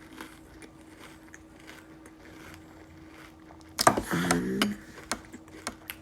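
Mouth sounds of someone eating crunchy cereal: faint chewing clicks, then about four seconds in a louder cluster of sharp clicks with a brief voiced murmur, over a steady low hum.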